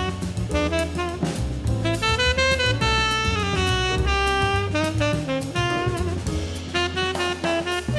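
Background jazz music with saxophone, drum kit and bass.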